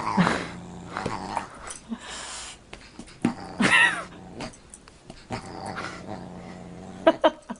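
Dog growling steadily while play-fighting with a cat, broken by a few short, louder, higher cries.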